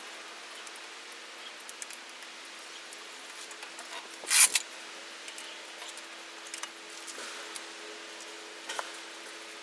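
Faint scattered clicks and handling noise over a steady low hum, with one brief louder jangle about four and a half seconds in.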